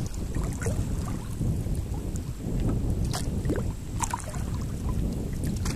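Wind buffeting the microphone on open water, a rough low rumble that rises and falls, with a few brief clicks about halfway through and near the end.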